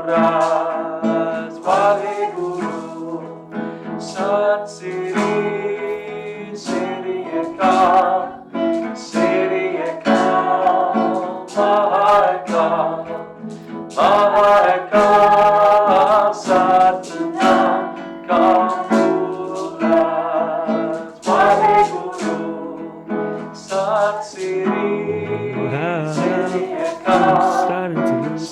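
Music: a voice singing over plucked guitar.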